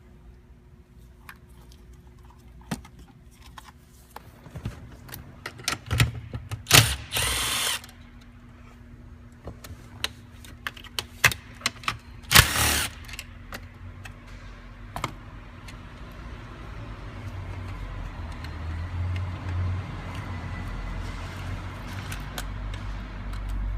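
Hand work on a car's plastic interior trim: scattered clicks and knocks, with two longer scraping rustles, the first about a third of the way in and the second near the middle.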